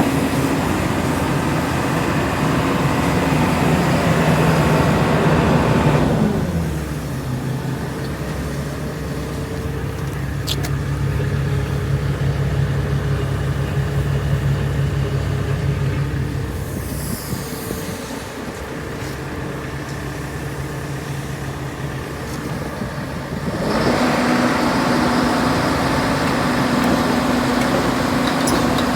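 Diesel engine of a JCB 220XLC tracked excavator running steadily. About six seconds in it drops to a lower speed, and it rises back to the higher speed near the end.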